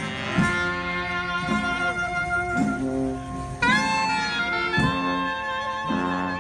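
New Orleans second-line brass band jazz: horns playing over a drum beat that hits about once a second.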